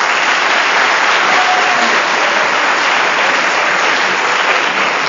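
Audience applauding, a loud and steady mass of clapping.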